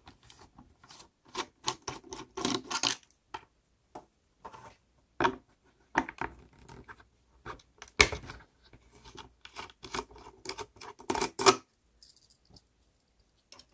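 Handling clatter of plastic battery-module cases and a metal driver on the terminal screws: irregular clicks, scrapes and rubs, with one sharp click about 8 seconds in.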